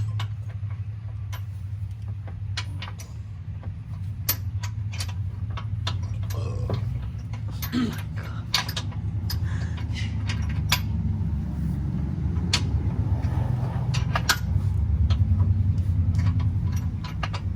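Metal tools and parts clinking and knocking, many separate short strikes, over a steady low hum that swells a little near the end.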